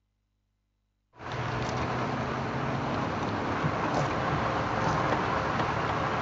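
Near silence, then about a second in the sound cuts in abruptly: a game-drive vehicle running steadily along a sandy dirt track, engine hum under road noise.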